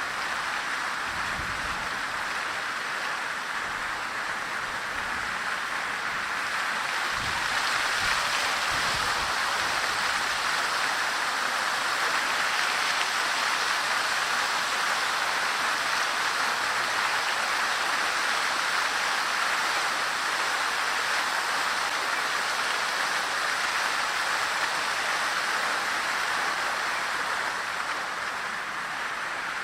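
Fountain water splashing steadily into its basin, a dense even hiss that grows a little louder about seven seconds in and eases near the end. A few low thumps come in the first several seconds.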